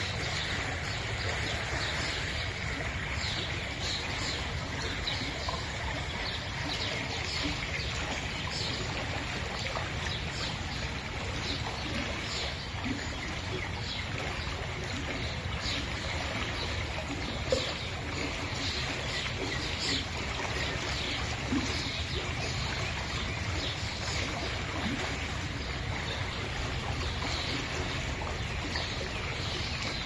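Forest stream flowing fast over rocks: a steady rush of running water. A single short knock a little past halfway through.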